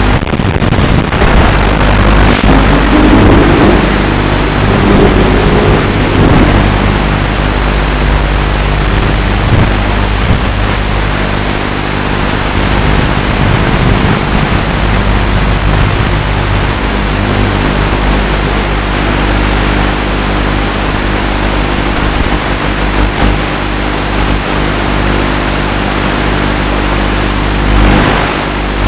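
FPV quadcopter's electric motors and propellers whining steadily with a rushing noise, the pitch rising a few seconds in and a short swell near the end.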